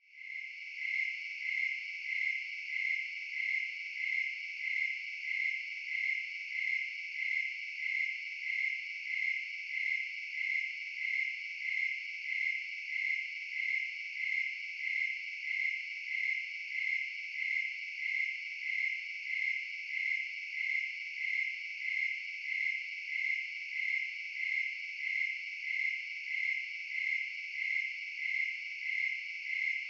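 Crickets chirping in a steady, even rhythm, about one and a half high-pitched chirps a second, without a break.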